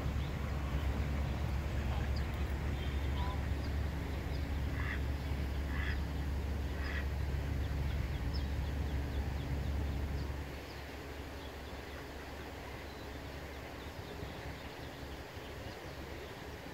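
Mallard hen quacking three times about a second apart, with ducklings peeping faintly. A steady low rumble underneath stops about ten seconds in.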